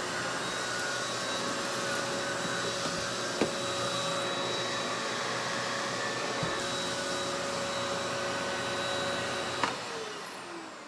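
Bosch vacuum with its freshly repaired Wessel Werk EBK280 power nozzle running with a steady whine. Near the end it is switched off with a click, and the motor winds down with a falling pitch.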